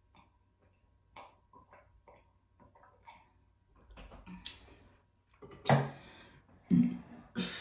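Soft gulps and small mouth clicks of someone drinking from a plastic tumbler, then two louder sudden sounds about six and seven seconds in.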